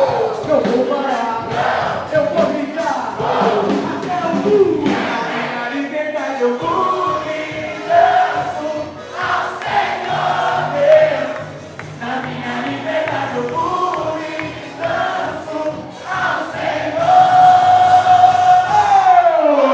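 Choir singing a Christian worship song with band accompaniment. Near the end the voices hold one long note that then slides down in pitch.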